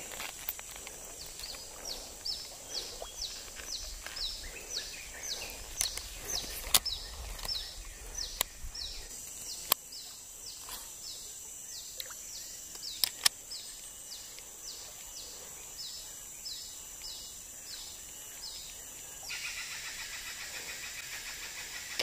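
Tropical forest ambience: a steady high insect drone, with a bird repeating a short falling note about twice a second until near the end, when a louder buzzing insect chorus comes in. Several sharp clicks stand out above it.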